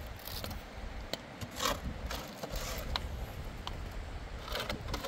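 Shovel scraping into sand and tipping its load into a metal wheelbarrow: a few gritty scrapes, one near the start, one just under two seconds in, and a longer one near the end, with small knocks between.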